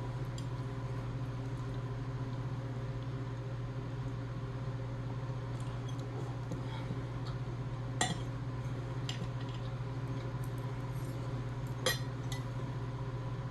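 Scattered light clinks and clicks of shells and tableware on plates during a meal, with two sharper clicks about eight and twelve seconds in, over a steady low hum.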